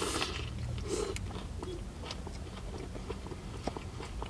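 Close-up chewing of a fried chicken sandwich, with soft wet mouth clicks and small crunches.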